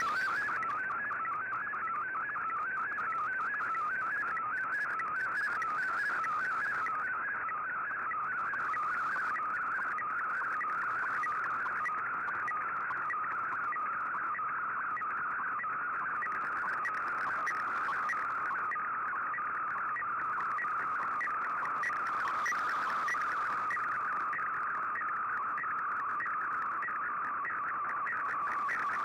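Digital-mode data signal received on a shortwave radio: a dense, warbling band of rapidly shifting tones that holds at a steady level throughout, with faint hiss coming and going above it.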